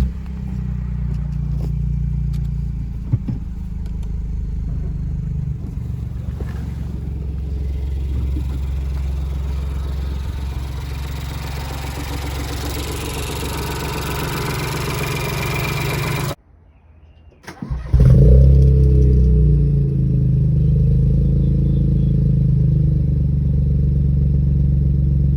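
Ford Focus 1.0 EcoBoost three-cylinder engine idling steadily just after being started, running on newly fitted Pumaspeed racing ignition coils. It stops short about sixteen seconds in, and after a short silence the engine is heard running again, louder.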